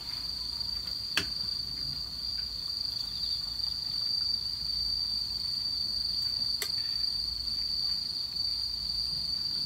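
Night insects trilling in one steady, unbroken high-pitched tone. A sharp click about a second in and another a few seconds later.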